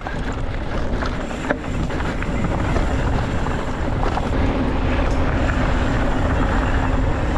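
Mountain bike rolling fast down a dry dirt and rocky trail: a steady rumble and rattle of tyres over the ground, with wind buffeting the bike-mounted camera's microphone.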